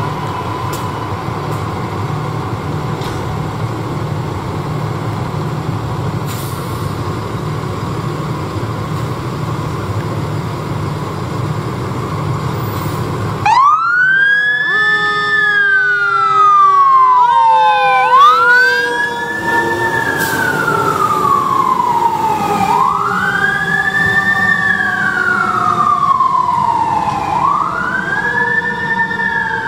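Fire engine with a steady low engine rumble, then about halfway through its siren starts. The siren wails in slow cycles, rising quickly and falling slowly about every four to five seconds, with extra overlapping siren tones during the first few cycles.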